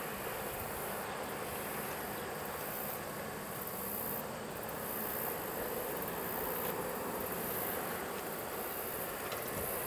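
Crickets and other field insects chirring in a high, pulsing drone over a low, steady rumble.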